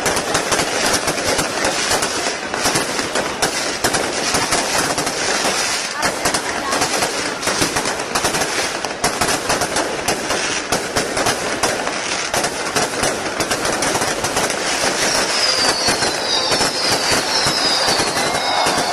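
Fireworks going off: a dense, continuous crackle of rapid pops, with a run of short falling whistles in the last few seconds.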